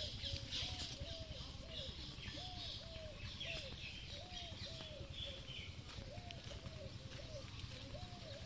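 A dove cooing over and over in short rising-and-falling notes, two or three a second, with small birds chirping higher up.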